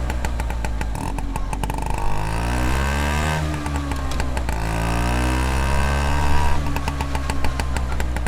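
Vespa scooter engine running while being ridden. The revs ease off and then climb again a couple of times.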